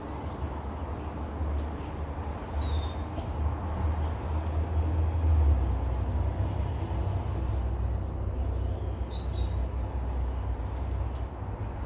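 Outdoor background: a steady low rumble that swells in the middle, with a few faint bird chirps and scattered light clicks.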